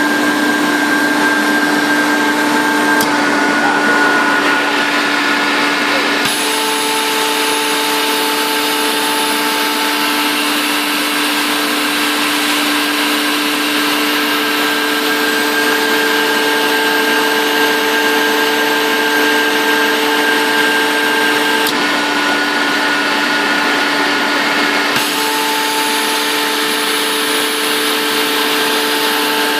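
Screw air compressor running with a steady hum of several tones over a loud hiss. The mix of tones shifts a few times, about six seconds in and again after about twenty seconds.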